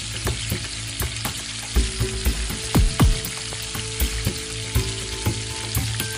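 Bonda and vadai batter deep-frying in hot oil in a large iron kadai: a steady sizzle with frequent sharp pops.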